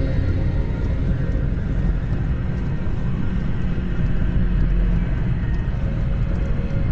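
Triumph Scrambler 1200 motorcycle heard on board while riding: its 1200 cc parallel-twin engine runs steadily under a heavy rush of wind on the microphone.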